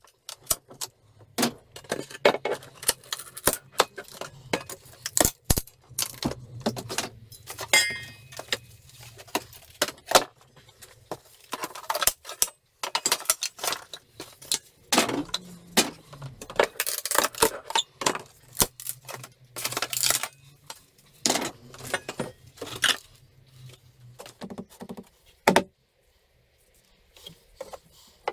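Wooden pallet being broken apart with a long-handled steel pallet breaker: a rapid, irregular run of knocks, cracks and clatter as deck boards are levered up and drop loose, with a brief high squeal about eight seconds in.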